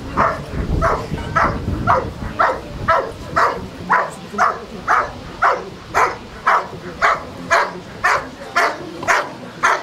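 German Shepherd dog barking steadily and rhythmically, about two barks a second.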